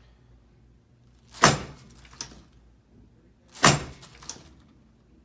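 Chiropractic drop-table headpiece dropping twice, each drop a sharp thud followed by a lighter click under a second later.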